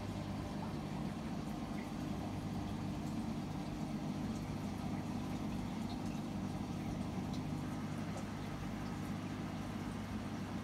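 A steady low mechanical hum with a faint hiss underneath, unchanging throughout.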